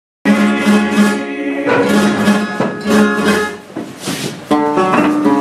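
Flamenco guitar playing a seguiriya, alternating strummed chords and ringing plucked notes.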